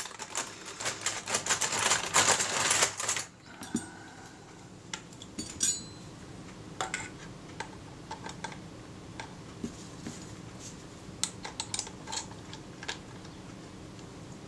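A rapid clatter of small metallic clicks for about three seconds, then scattered light clicks and taps of a small hand tool working on the metal body of a Kodak Retina II folding camera.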